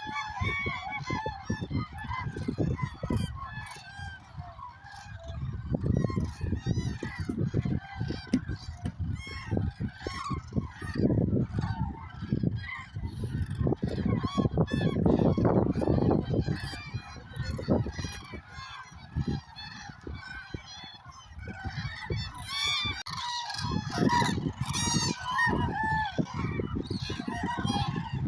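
A large flock of common cranes calling, with many trumpeting calls overlapping throughout.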